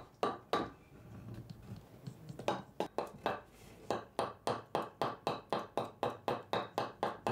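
Regular sharp knocks, about three a second, each dying away quickly. They stop about a second in and start again, unevenly at first, after about a second and a half.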